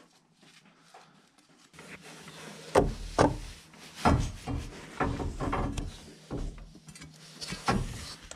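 Steel rebar being lowered down inside an insulated concrete form, scraping and knocking against the form's plastic webs. Quiet at first, then a run of irregular knocks and rubs from about two seconds in.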